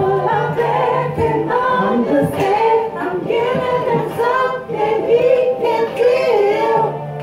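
Several women singing together into handheld microphones over a recorded backing track, with a low bass note held at the start and again near the end.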